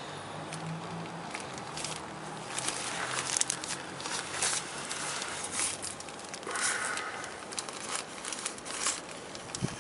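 Irregular clicks and scrapes of a filter wrench working a car's spin-on oil filter loose, with metal and plastic creaking as the filter turns.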